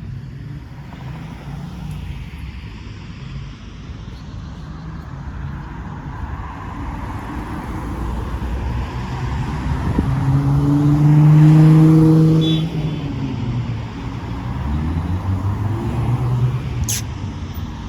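A transit bus's diesel engine approaches and passes over a steady rumble of road traffic. Its engine hum builds to the loudest point about two thirds of the way through, with a brief high squeal, then fades. A sharp click comes near the end.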